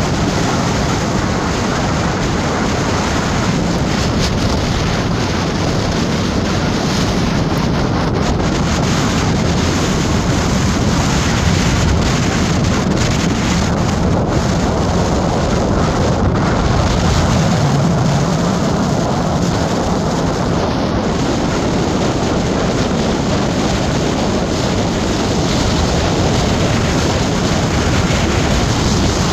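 Steady wind and road noise from a moving vehicle, with wind buffeting the microphone; a low rumble with an even hiss above it.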